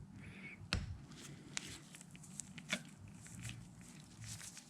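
Faint, scattered clicks and light knocks of tools and small fork parts being handled, the sharpest knock just under a second in.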